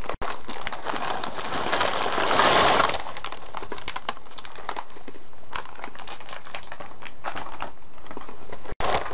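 Braided pretzels poured into a plastic zip-top bag of seasoning paste, a dense rattling rush about two seconds in. The plastic bag crinkles throughout as it is handled.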